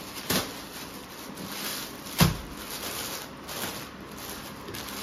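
Clear plastic garment packaging rustling and crinkling as a packed suit is handled and opened, with two thumps, the louder one about two seconds in, as a package is set down on the counter.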